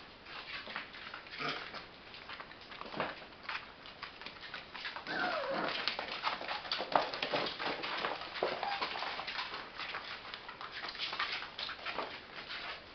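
Labrador retriever puppies playing: paws scrabbling and clicking on the floor throughout, with a falling whimper about five seconds in and a shorter whimper near eight and a half seconds.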